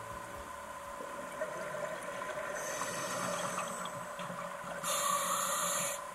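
Underwater ambience from a scuba dive, with a steady hum and faint hiss; about five seconds in, a loud rush of about a second, like a diver's exhaled bubbles from a scuba regulator.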